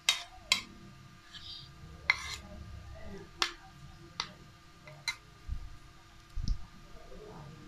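Metal spoon and fork clinking and scraping against a plate while mixing noodles, about six sharp irregular clinks, with two low dull thuds in the second half.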